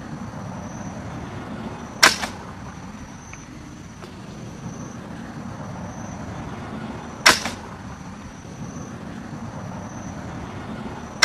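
Homemade bamboo crossbow being shot three times, each release a sharp snap followed by a quick second click: about two seconds in, about seven seconds in, and at the very end.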